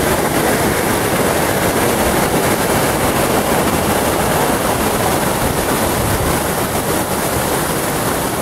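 A tall waterfall pouring steadily at close range: a loud, even rushing noise that does not change.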